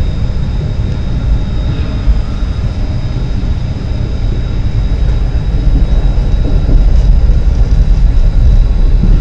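Tram running along its track: a steady low rumble of wheels and running gear, with a faint steady high whine over it.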